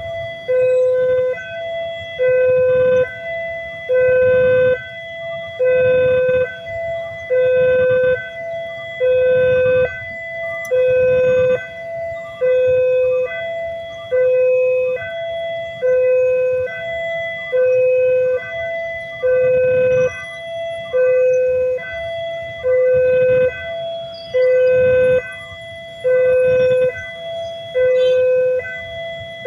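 Electronic railway level-crossing alarm sounding its steady two-tone warning, a lower and a higher tone alternating, one full cycle about every second and three-quarters, the signal that a train is approaching and the crossing is closed.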